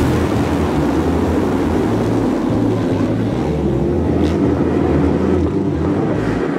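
A full pack of motocross bikes accelerating together off the start line, their engines blending into one continuous, steady din.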